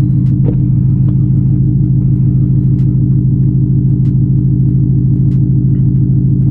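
A car's engine idling with a loud, steady low rumble, heard from inside the cabin, with faint regular ticks about every second and a quarter.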